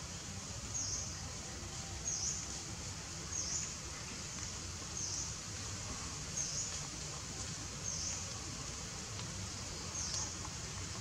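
Outdoor woodland ambience: a steady high hiss of insects with a short, high chirp repeating about seven times, one every second or two.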